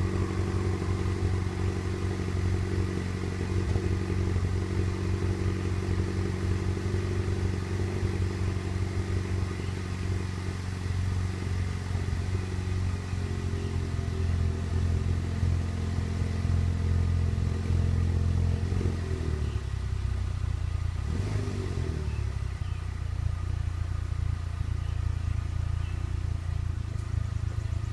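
2009 Chevrolet Cobalt SS's turbocharged 2.0-litre four-cylinder idling from cold, heard from behind at the exhaust. The idle note is steady, then drops lower about two-thirds of the way through.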